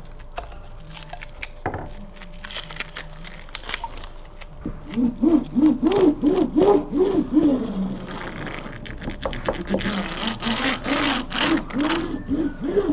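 Hand laminating roller worked quickly back and forth over resin-wetted fibreglass mat, its spindle whirring in a pitch that rises and falls with each stroke, about three strokes a second, starting about five seconds in. Before that, scattered light clicks and knocks of tools against the timber.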